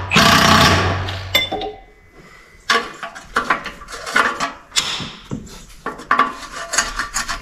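A power tool runs for about the first second and a half and stops, then a run of irregular metallic clinks and knocks follows as the pickup's exhaust is worked loose.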